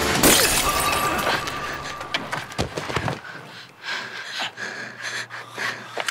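A loud breaking crash from a blow in a fight, about a third of a second in, dying away over the next two to three seconds. Quieter scattered sounds follow.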